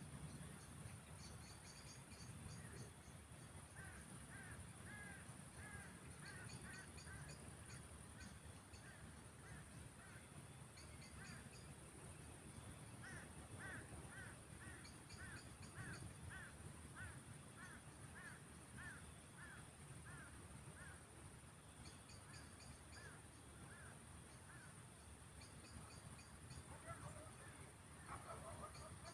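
Faint outdoor chorus of frogs calling in evenly repeated series, about two calls a second, with clusters of high chirps above them and a steady high-pitched insect drone underneath.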